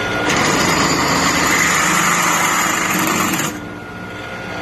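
Drill press running with a bit cutting into stainless steel: a loud, harsh grinding for about three seconds, then dropping back to the motor's quieter hum.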